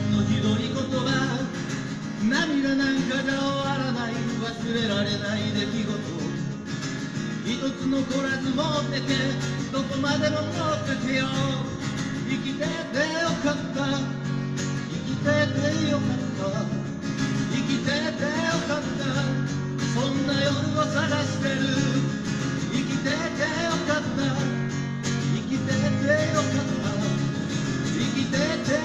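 Live acoustic guitar strummed and picked through a song, with a steady rhythm.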